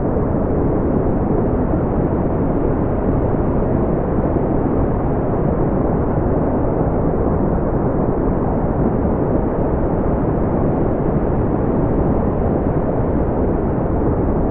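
Brown noise: a steady, deep rushing hiss, strongest in the low end and fading toward the highs, unchanging throughout.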